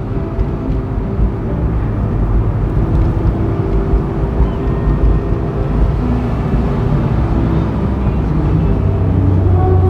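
A 2006 Honda S2000's 2.2 L four-cylinder F22C1 engine running steadily as the car drives along, with a low drone that gets louder near the end.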